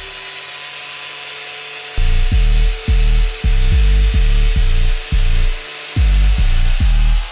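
Angle grinder running steadily with a high whine as its disc cuts through a PVC pipe. About two seconds in, background music with a heavy pulsing bass beat comes in over it.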